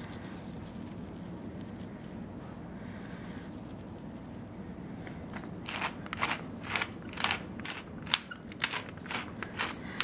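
Pepper grinder being twisted, grinding black pepper: a run of short gritty crunches, about three a second, starting about halfway through after a low steady room hum.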